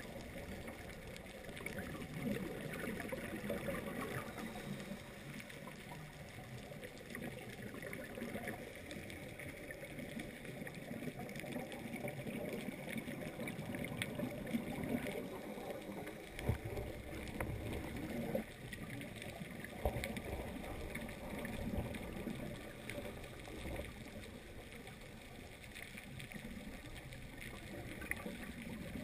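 Muffled underwater sound through a GoPro's waterproof housing on a scuba dive: a steady watery hiss with gurgling and a few sharp clicks. A deeper rumble joins about halfway through.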